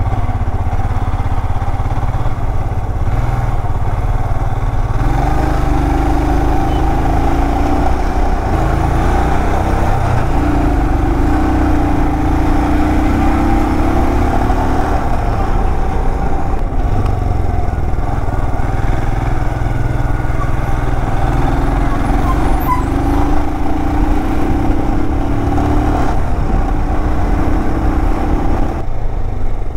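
Royal Enfield Himalayan 411's single-cylinder engine running on the ride, over a steady low rumble. Its pitch rises in three long pulls as the bike accelerates, dropping back between them.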